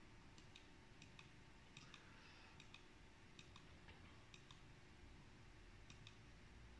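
Faint clicks of a computer mouse, mostly in quick pairs and repeated several times at uneven intervals, over near-silent room tone.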